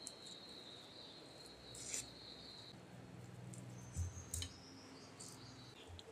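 Faint handling of boiled potatoes being peeled by hand and set into a ceramic bowl: small skin-tearing clicks, with two soft knocks about four seconds in as a potato is put down in the bowl.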